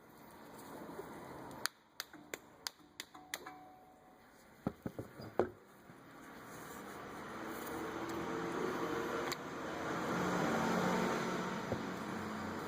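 Sharp metal taps, a hammer knocking out a brake caliper's slide bushing: a quick run of about six strikes, then a few more. After that a steady mechanical hum swells up and holds.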